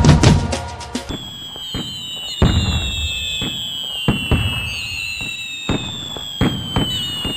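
New Year's Eve fireworks: sharp bangs going off every second or so, some in quick pairs, over several long whistles slowly falling in pitch.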